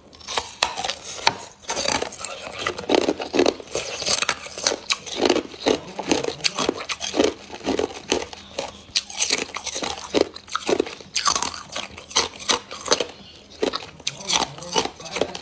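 Hard clear ice being bitten and chewed, a steady run of sharp cracks and crunches, a few every second.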